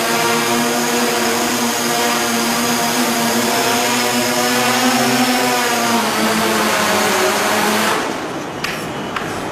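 Quadrotor propellers buzzing steadily in flight, a whine of several stacked tones over a hiss. About six seconds in the pitch of the tones shifts, and near the end the hiss cuts out abruptly and the buzz turns quieter, with a couple of light clicks.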